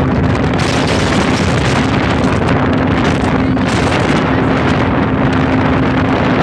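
Motorboat under way: the engine's steady hum under heavy wind buffeting the microphone.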